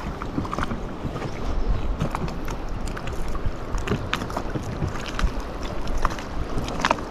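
Small waves lapping and slapping against the hull of an inflatable boat, with wind on the microphone.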